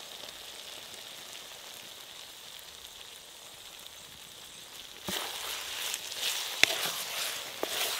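Chicken in coconut-milk masala sizzling steadily in a kadai over a wood fire. About five seconds in, a spatula starts stirring it, and the sound grows louder and rougher, with scrapes and sharp clicks against the pan.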